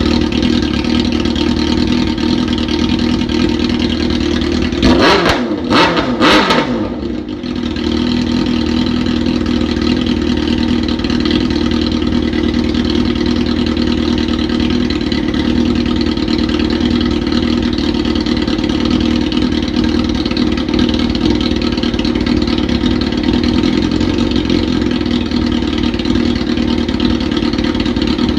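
Suzuki GSX-R 600's inline-four engine running just after its first start following a carburettor rebuild. It idles steadily, with two quick throttle blips about five and six seconds in, then settles back to a steady idle.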